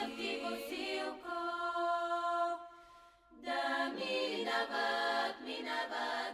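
Choir singing on a music soundtrack. About a second in the voices hold a long chord, which fades out a little after two and a half seconds. After a short break near three seconds, the singing comes back in.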